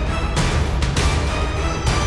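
Dramatic background score music: a steady low bed with held tones and a few sharp hits.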